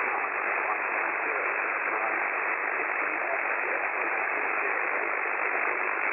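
Steady hiss of a single-sideband receiver tuned to the 6 m amateur band, an Icom IC-7610, with no readable signal through the noise.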